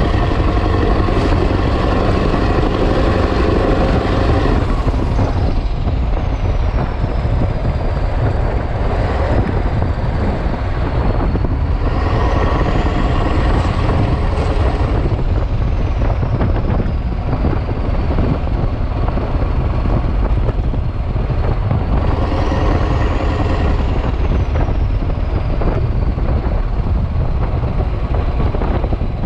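Mack E9 V8 diesel of a Renault Magnum truck running loud through an open exhaust while driving. A high turbo whistle climbs and falls away several times over the steady engine noise.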